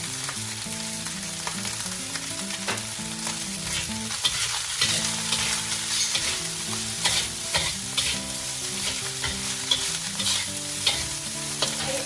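Fried rice and vegetables sizzling in a hot wok as they are stir-fried, a steady hiss with a utensil scraping and clinking against the wok, the strikes more frequent from about four seconds in.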